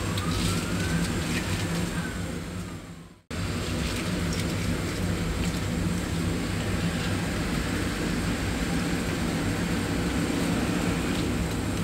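Steady machine-like rumble with a low hum, and a tone that rises then falls in the first few seconds; the sound drops out briefly about three seconds in, then the rumble carries on.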